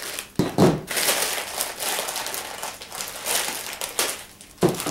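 Clear plastic packaging bag crinkling and rustling as a part is pulled out of it, with louder crackles about half a second in and again near the end.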